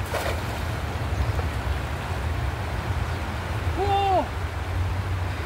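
Steady rush of a shallow river flowing over stones, with a low rumble under it. About four seconds in, a short hooted 'ooh' from a man's voice, rising then falling.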